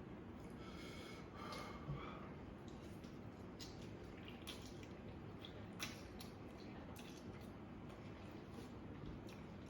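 Faint eating sounds of spicy noodles being chewed: scattered small wet clicks and squishes over a low room hiss.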